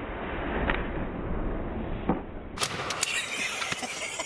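Steady rustling noise with a few sharp clicks. A little over halfway through it changes abruptly to a brighter, crisper rustle.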